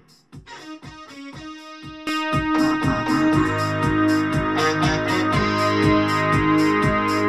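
Instrumental music led by a keyboard: sparse notes over a light pulse, then about two seconds in a fuller, louder arrangement with bass and a steady beat comes in.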